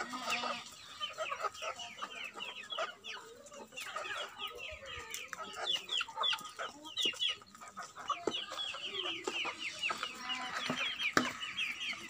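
A flock of chickens clucking and calling, with many rapid, short, high chirps that fall in pitch. A sharp knock comes near the end.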